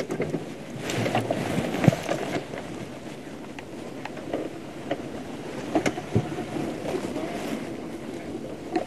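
Game-drive vehicle's engine running as it creeps slowly along beside the animal, with a steady rumble and a few sharp knocks and rattles.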